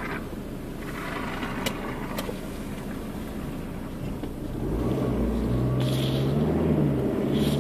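A car's engine and tyres heard from inside the cabin while driving over a railway level crossing, with two sharp knocks about two seconds in. About four and a half seconds in the engine gets louder and its pitch rises and falls as the car pulls away.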